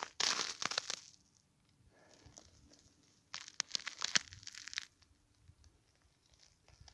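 Ice crunching and scraping at an ice-fishing hole in two short spells, the first right at the start and the second about three and a half to five seconds in, with near silence between.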